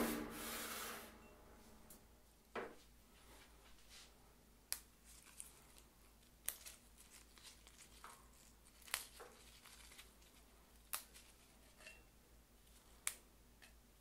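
A cut-crystal mixing glass set down on the counter with a knock, then faint sharp snaps every second or two as spearmint leaves are plucked from the sprig and dropped into the glass.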